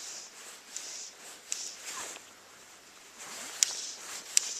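Steady high-pitched hiss of insects, crickets, in the streamside vegetation, with a few sharp clicks, the two loudest near the end.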